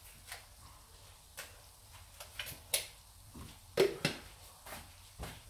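Scattered sharp clicks and knocks of a spoon and a jar being handled at the stove, about ten taps in a few seconds, the loudest about two-thirds of the way through.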